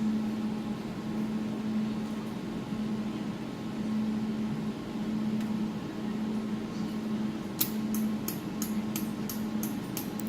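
Jewelry laser welding machine humming steadily. About three quarters of the way in, a quick regular run of sharp clicks starts, about four a second.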